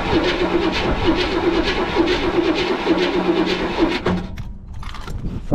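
Motorhome engine cranking over on its starter motor with a steady, rhythmic beat but not firing, then stopping about four seconds in. The engine turns over after sitting more than ten years but does not catch.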